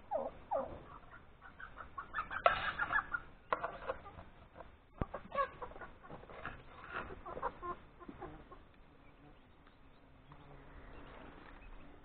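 Chickens clucking: a run of short calls that thins out near the end, with one sharp click about five seconds in.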